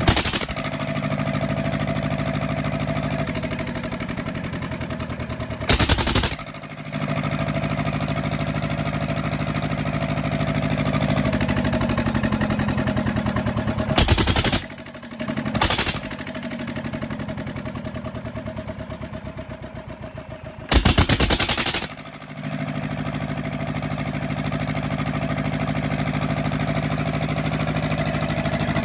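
Kirloskar diesel engine running steadily, its speed drifting a little partway through. It is broken by four short, loud bursts, at about six, fourteen, sixteen and twenty-one seconds in.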